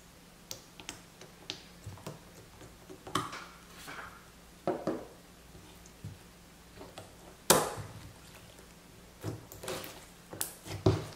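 Clear-glue slime being handled: a few light clicks as drops of purple colouring are squeezed onto it, then sticky crackles and snapping pops as it is stretched and pulled apart by hand. The sharpest pop comes a little past the middle.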